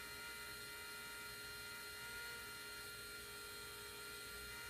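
Bohning cresting machine's small electric motor running steadily as it spins a wooden arrow shaft, a faint even hum with several steady tones.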